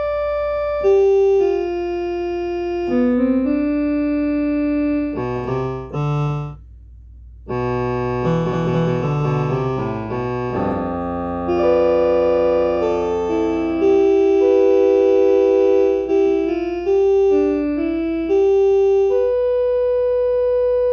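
Electronic keyboard played slowly: mostly single held notes making a melody, with a stretch of chords in the middle and a short break about seven seconds in.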